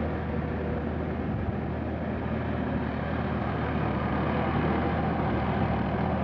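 Sonalika DI-50 RX tractor's diesel engine running steadily at an even pitch as the tractor drives through a flooded field.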